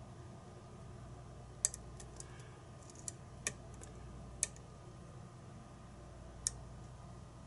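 Scattered sharp little metallic clicks and ticks, about seven over several seconds, from a lock pick and tension wrench working the pins of a Kwikset-based challenge lock, over a low steady hum.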